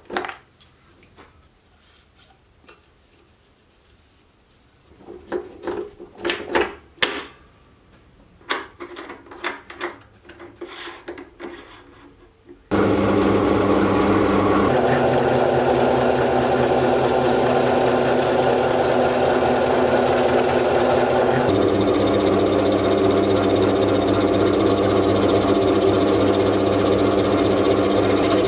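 Scattered clicks and knocks of hands setting up work at a metal lathe, then about halfway through a small fixed-speed metal lathe starts abruptly and runs steadily, turning steel parts held between the chuck and a tailstock centre. Its tone shifts twice during the run.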